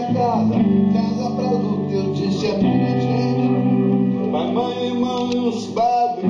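Live band music at a soundcheck: guitar playing, with a voice singing over it.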